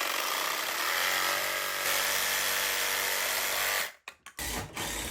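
Power tool running: one steady run of about four seconds, then a short second burst after a brief stop.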